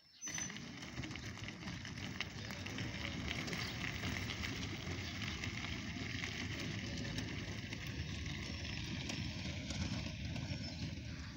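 Tyres of a homemade electric-assist velomobile tricycle and its trailer crunching steadily over gravel as it rolls along, starting abruptly just after the beginning.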